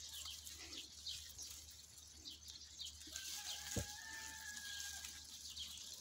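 Faint rustling of leaves and twigs as berry bushes are handled. About three seconds in, a faint, even-pitched animal call is held for nearly two seconds, with a single soft knock in the middle of it.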